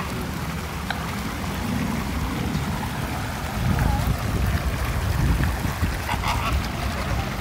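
A few faint goose-like honks from a flock of flamingos over a steady low rumble of outdoor noise.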